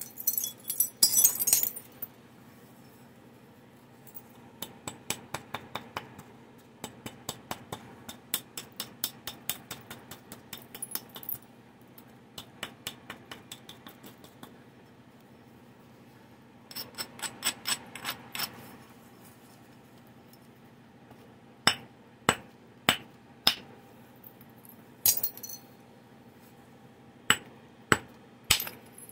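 Antler billet striking a stone biface in percussion flaking for a Clovis point. A clinking clatter at the start is followed by quick runs of light taps, several a second, and then single sharper blows about a second apart near the end.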